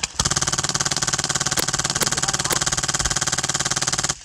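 Airsoft Stoner 96 light machine gun with an HPA Polarstar engine firing one long fully-automatic burst of about four seconds, a fast even rattle that cuts off suddenly near the end.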